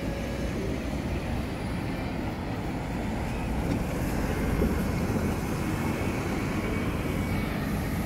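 City bus driving past, its engine running and tyres on the road, a little louder as it goes by about four seconds in, over steady road traffic.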